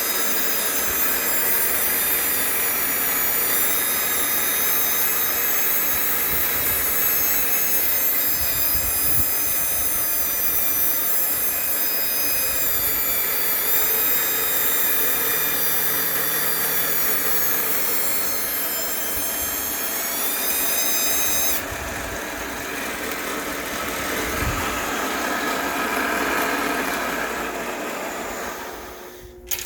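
Manual milling machine cutting a circular bore while a DeWalt cordless drill turns the rotary table in place of the hand crank: a steady, loud machine run with a high multi-tone whine. The highest whine cuts off suddenly about two-thirds of the way through, and the rest of the machine sound dies away near the end.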